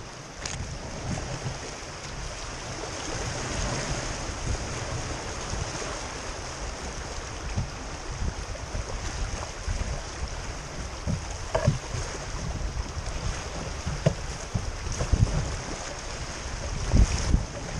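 Whitewater creek rushing around a canoe as it runs a rapid, with low gusty wind rumble on the microphone. A few brief sharp knocks come through, the loudest near the end.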